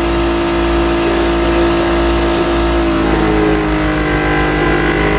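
Electric power percussor buzzing steadily during chest percussion therapy, with a low pulsing under it. Its pitch shifts about three seconds in.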